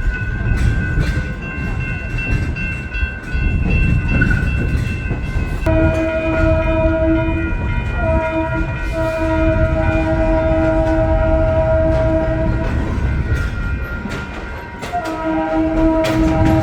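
A train running with a low rumble. From about six seconds in, its horn sounds a steady chord in one long blast, broken briefly twice. The horn stops, then sounds again near the end.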